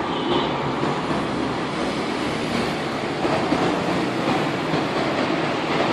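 Steady city street noise from road traffic, a dense continuous rumble.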